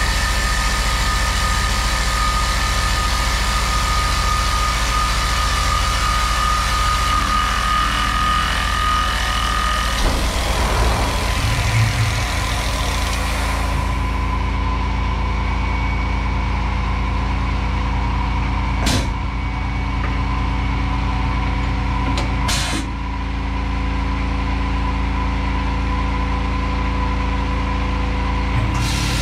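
Tormach 1100M CNC mill running: for the first ten seconds or so, a steady whine and hiss from the spindle and cutter working an aluminum part. The hiss stops about halfway through, leaving the machine's steady hum. Two short sharp bursts follow, typical of the air-powered drawbar during a tool change, and the hiss comes back right at the end.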